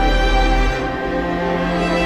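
Background music of sustained held notes, dipping a little in loudness midway.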